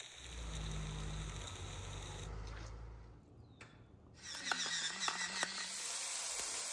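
Shrimp frying on a hot griddle: a steady sizzling hiss with irregular crackling pops, starting about four seconds in. Before it there is a low rumble with faint hiss.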